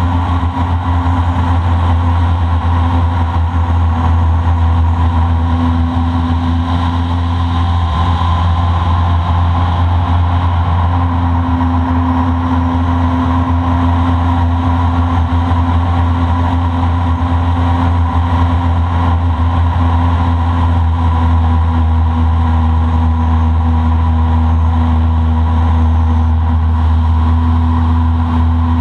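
A small boat's outboard motor running at a steady speed while the boat is under way, a constant low engine hum with no change in throttle.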